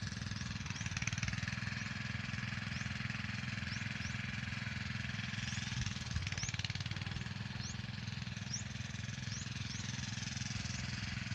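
Small engine running at a steady speed throughout, its fast, even firing pulse unchanged, with a few faint, short, high rising chirps over it in the second half.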